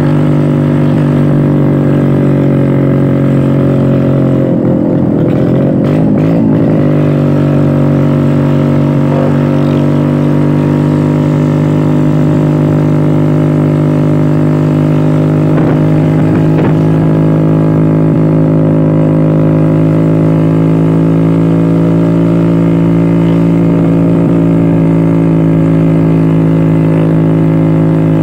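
Old two-stroke Vespa scooter engine running steadily while riding. Its note briefly wavers in pitch about five seconds in, then settles back to the same steady pitch.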